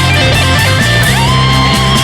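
Overdriven electric guitar playing a lead line over sustained low notes, with a note bent up about a second in and held with vibrato.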